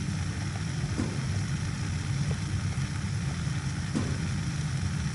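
Propane burner of a wall furnace firing, a steady low rumble of the flames while the gas pressure to the burner is being set.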